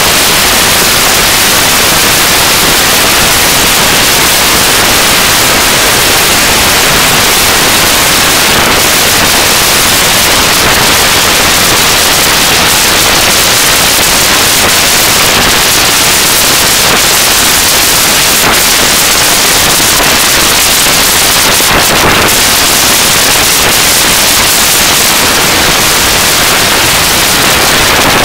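Loud, steady hiss of noise that stays even throughout, with no tones or rhythm in it.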